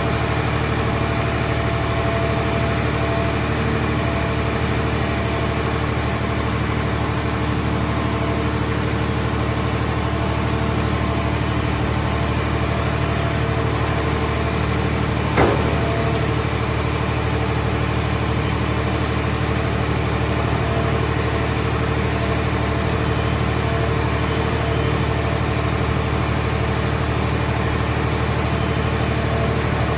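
Engine of a portable car-shell baler running steadily at an even speed, with a single sharp knock about halfway through.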